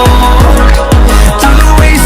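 Background music: an electronic pop track with a heavy bass and a steady kick drum about twice a second, without vocals here.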